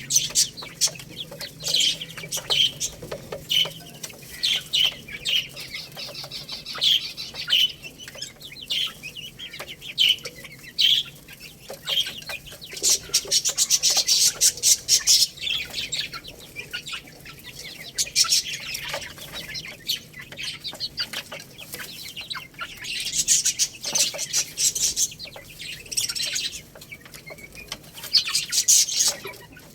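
Young chickens chirping: a steady run of short, high-pitched peeps one after another, thickest about halfway through and again near the end, with short clicks mixed in.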